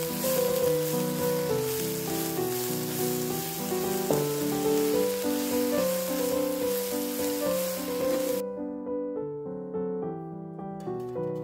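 Background music over sliced mushrooms and onion sizzling in a frying pan; the sizzle cuts off about eight seconds in, leaving the music alone, with a few short scrapes near the end.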